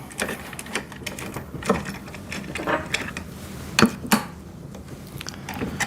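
Small metal clicks and rattles of bolts and hand tools being handled as bolts are fitted to the wood chipper's wheel axles, with two sharper clicks about four seconds in.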